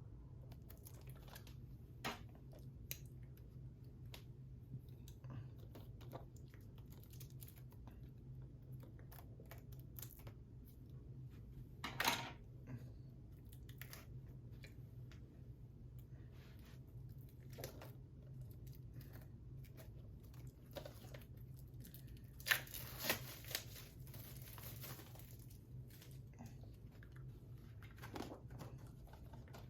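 Plastic packaging on a 4K Blu-ray being handled and torn open: scattered small crinkles and clicks, a sharper tear about twelve seconds in and a longer ripping stretch a little past twenty seconds, over a low steady hum.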